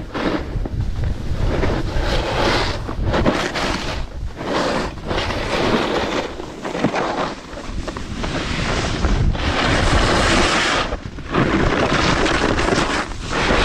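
Wind buffeting a handheld GoPro Max 360 action camera's microphones during a snowboard descent, mixed with the hiss and scrape of the board sliding over packed snow. The noise rises and falls in surges every second or two.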